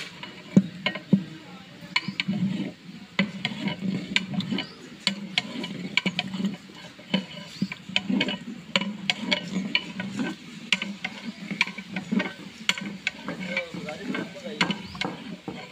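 Long-handled metal ladle stirring a large metal cooking pot of liquid, clanking and scraping against the pot again and again at an uneven pace.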